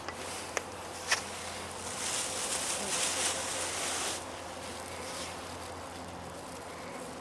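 Honeybees buzzing at the hive, a steady hum. Two sharp clicks come about a second in, and a louder rustling hiss runs from about two to four seconds in.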